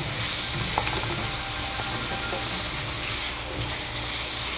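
Diced chicken frying in butter and olive oil in a frying pan, a steady sizzle, while a wooden spatula stirs it, scraping and clicking against the pan.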